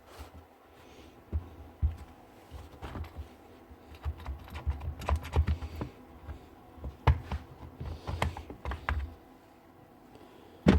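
Irregular light clicks, taps and knocks of a cordless grease gun's plastic housing and parts being handled and taken apart on a bench.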